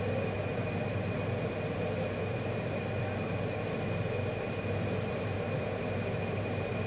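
Steady mechanical hum with a constant thin high-pitched whine over it, unchanging throughout.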